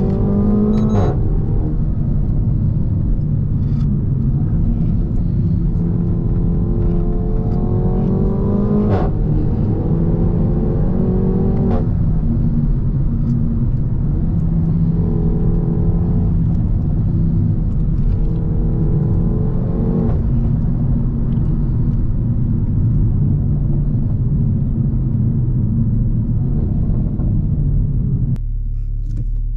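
Renault Mégane 4 RS 280's 1.8-litre turbocharged four-cylinder on a catless exhaust, accelerating hard through the gears. Revs climb and are cut off by upshifts about a second in, around nine seconds and around twelve seconds, each with a sharp crack. Steadier running follows, easing off near the end.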